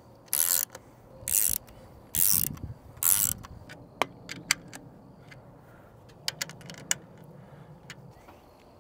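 Ratchet driver clicking in short bursts, about one a second, as it tightens the bolts of a dome camera's wall-mount bracket. After about three and a half seconds it gives way to a few scattered sharp clicks.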